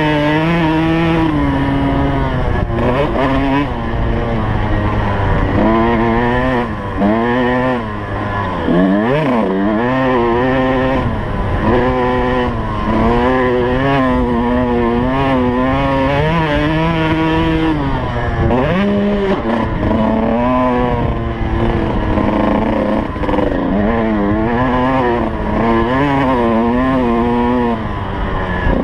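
2003 Suzuki RM125 two-stroke single-cylinder engine heard from on the bike while it is ridden hard. The pitch repeatedly climbs and falls back as the throttle is opened and closed, with a sharp drop and quick recovery about nine seconds in.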